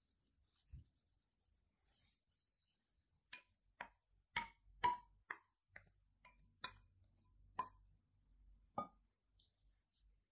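A wooden spoon clinking against glass as flax mass is scraped out of a small glass jar into a glass mixing bowl: about a dozen light knocks, each with a short ringing tone, spread over a few seconds.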